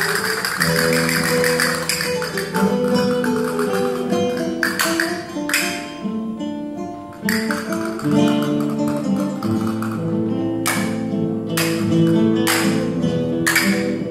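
Spanish acoustic guitar playing a flamenco-style dance tune, with sharp strummed strokes at intervals. Castanets click along in quick runs.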